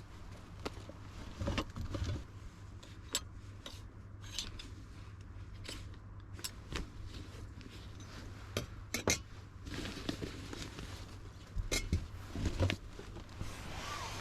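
Scattered light clicks and clinks of small objects being handled, over a steady low rumble.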